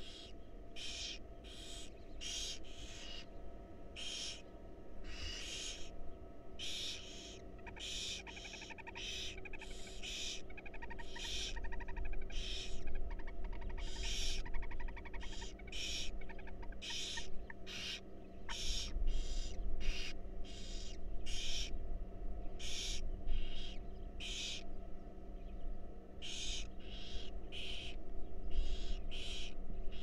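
Barn owl nestlings begging for food with repeated rasping hiss calls, about one to two a second. A fainter rapid chittering runs through the middle of the stretch.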